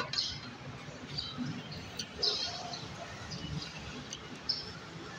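Close-up eating sounds: chewing mouthfuls of instant noodles, with a plastic fork stirring and scraping in a paper cup. There is a sharp click right at the start.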